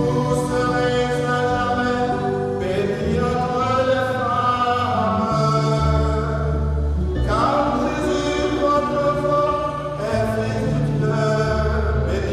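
Hymn singing: voices singing a slow sung melody over an accompaniment of held low notes that change in steps.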